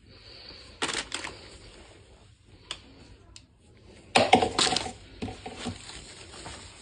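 Plastic buckles, clips and packaging being handled: irregular sharp clicks and rustling, with a loud burst of clacking about four seconds in.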